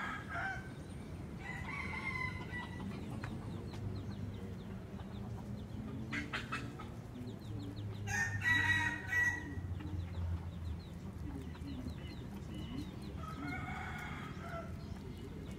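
Birds calling: four drawn-out calls a few seconds apart, the loudest about eight seconds in, over a steady low background hum.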